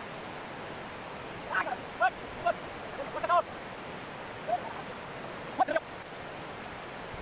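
Steady rush of a stream or waterfall. Over it come several short, high-pitched vocal calls between about one and a half and six seconds in.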